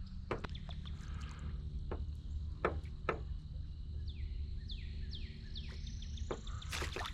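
Steady low wind rumble on the microphone, with scattered sharp clicks and knocks that bunch up near the end, and a quick run of bird calls, each sliding downward in pitch, about four to five and a half seconds in.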